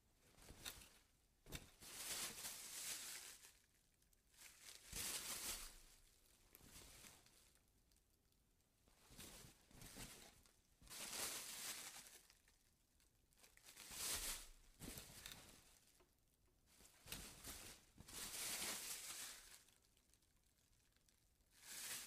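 Plastic grocery bag being handled and moved, crinkling in repeated bouts of a second or two with short pauses between them.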